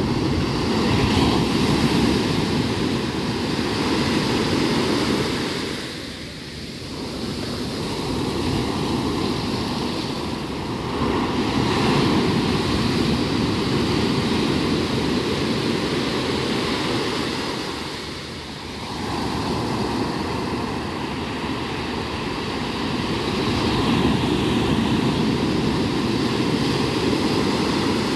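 Sea waves breaking and surf washing up a sandy beach in a continuous rush. The rush rises and falls in long surges, easing briefly about six seconds in and again about eighteen seconds in.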